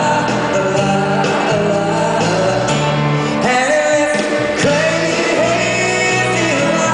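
Live big-band music with a male crooner singing: horns, upright bass, drums and piano behind a held, gliding vocal line.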